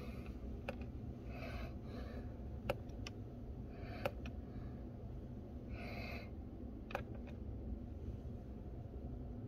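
Button presses on an Egro One coffee machine's keypad: about five sharp clicks spread out over a steady low hum, with breathing close to the microphone twice in between.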